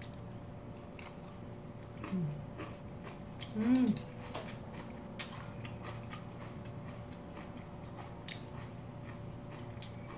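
Close-up chewing of a mouthful of cabbage kimchi, with small wet clicks and crunches scattered throughout. Two short hummed vocal sounds come from the eater about two and four seconds in, over a faint steady hum.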